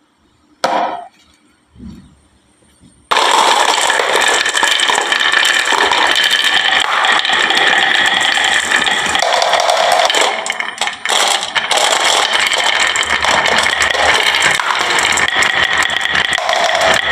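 Glass marbles rolling and clattering down a wooden marble run. After a couple of single knocks, a dense, continuous rattle of many marbles starts suddenly about three seconds in.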